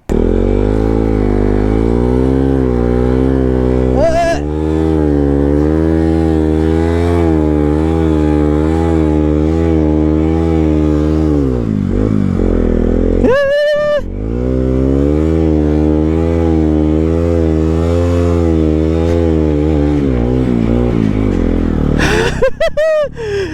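Motorcycle engine revved and held at high revs under load, its pitch wavering, as the bike is driven to free it from deep sand where it is stuck. It drops out briefly about halfway, then runs again.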